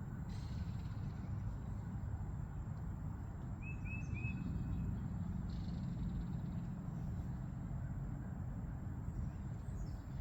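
Outdoor ambience: a steady low rumble with a small bird chirping three quick notes about four seconds in, and a few brief soft rustles.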